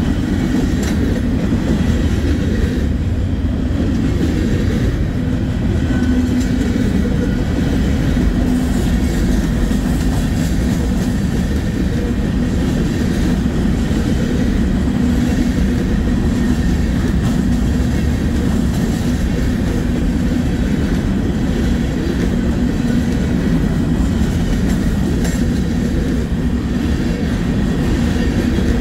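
Norfolk Southern manifest freight train rolling past, its railroad cars making a steady, unbroken sound.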